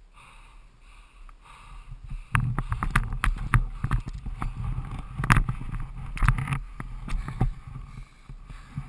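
Camera handling noise: a string of knocks and rubbing against the camera and its mount over a low rumble, starting about two seconds in after a faint stretch.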